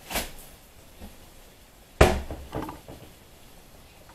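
A few knocks from hard objects being handled: a short bump at the start, a sharp knock about two seconds in that is the loudest, then a couple of lighter knocks.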